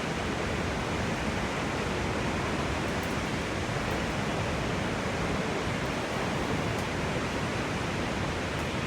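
Victoria Falls' water pouring down, heard as a steady, even rushing noise with no breaks.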